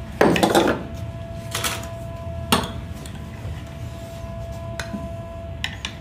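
A short pour of liquid from a small glass into a ceramic cup just after the start, followed by a spoon stirring and a few sharp clinks of the spoon and glassware against the cup and the metal drip tray.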